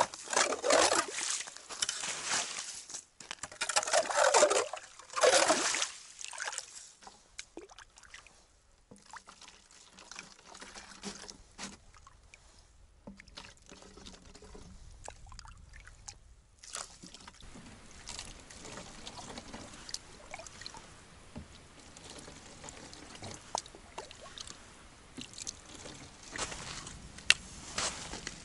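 Hand ice auger grinding and scraping in a hole through lake ice, in loud bursts over the first few seconds. Then water from the hole is poured into plastic jugs, a quieter trickling with small splashes and clicks.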